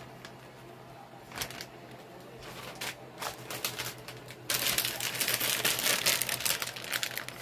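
Plastic bag of shredded sharp cheddar crinkling as it is handled and emptied, a few light clicks at first, then loud, dense crinkling from a little past halfway.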